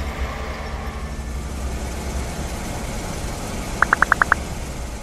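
Truck engine sound running with a steady low rumble, and a quick run of six short high beeps about four seconds in.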